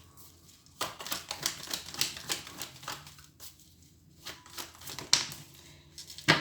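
A deck of oracle cards being shuffled and handled, a quick irregular run of crisp clicks and slaps that starts about a second in.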